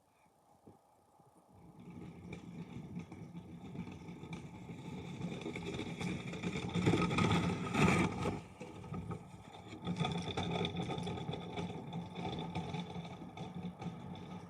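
A motor starts running about a second and a half in with a steady whine, building to its loudest in the middle, dipping briefly, then carrying on.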